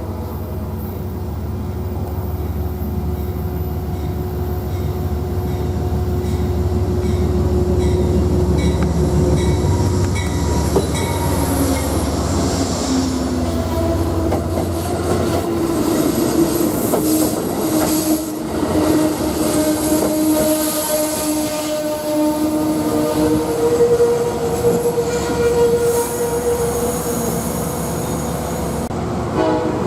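A train running by: a heavy low rumble builds over the first several seconds and eases after about fifteen, then cars roll past with steady wheel-squeal tones.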